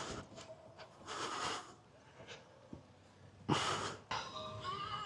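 A person breathing hard during bodyweight exercise: two forceful exhales, one about a second in and a shorter, sharper one a little after three and a half seconds.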